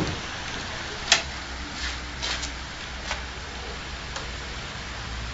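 Carriage door of a battery-powered mall train shut with a thump, followed by a scattering of sharp clicks and knocks, the loudest about a second in, over a steady low hum.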